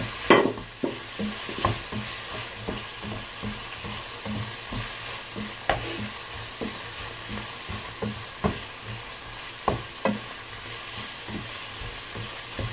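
Wooden spatula stirring prawns and scotch bonnet pepper in a hot non-stick frying pan: a steady sizzle, with a light knock of the spatula against the pan every second or so, the hardest one right at the start.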